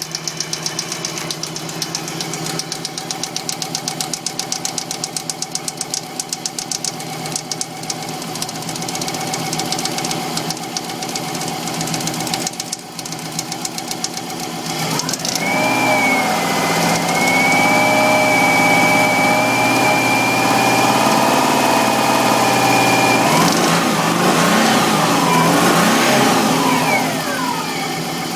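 Subaru WRX flat-four boxer engine running with a fast, even knock at idle, then revved up about halfway through, held at higher revs, and let drop back near the end. The knock is what the owner takes as a sign that the engine is knackered.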